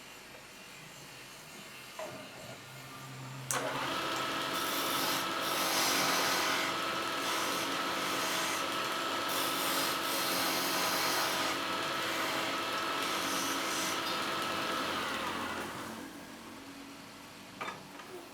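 A wood lathe runs with a steady motor whine while wood is worked on it with a rasping rub. The machine comes in with a click about three and a half seconds in and winds down near the end, its whine falling in pitch.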